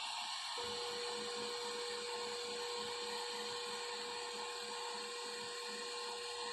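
Prusa 3D printer printing: a steady stepper-motor whine with a soft repeating pulse over fan hiss. The whine is briefly absent at the start and comes back about half a second in.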